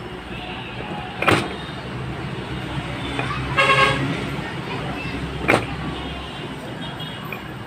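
Vehicle engine running steadily in the background, with a brief horn toot about halfway through. Two sharp knocks, one early and one later, ring out over it, and the engine hum fades near the end.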